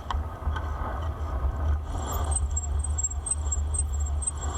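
Wind rumbling on the microphone of a moving bicycle, with a faint, high squeal from the bicycle's brakes pulsing several times a second from about two seconds in.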